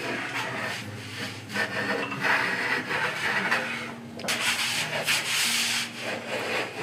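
A long hand plane shaving the edge of a white oak slat in long hissing strokes, two of them strongest, with a short break between them about four seconds in.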